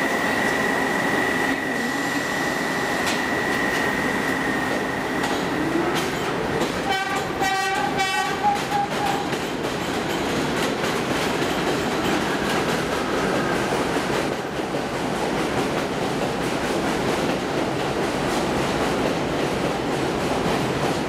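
Kawasaki R62 subway trains: a steady high squeal for the first few seconds and a rising motor whine as one train pulls out. A short cluster of horn blasts comes about seven seconds in. Then the steady rumble and clatter of an arriving train running in past the platform.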